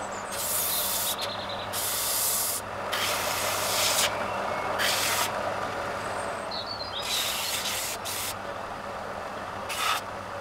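Bench belt sander running with a steady motor hum, as a small strip of wood is pressed to the moving belt in several short passes, each a second or less of sanding noise.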